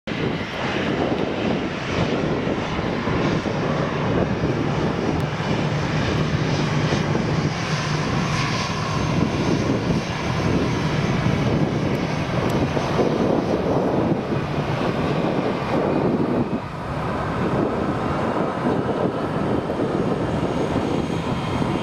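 Airliner jet engines at takeoff power as an Airbus A330 accelerates down the runway: a loud, steady rush of noise with a low hum underneath, easing briefly about three quarters of the way through. Engine noise from an Airbus A320 taxiing close by mixes in near the end.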